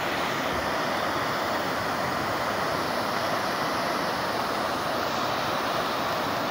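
Muddy floodwater rushing steadily under a storm-damaged bridge, an even noise with no breaks.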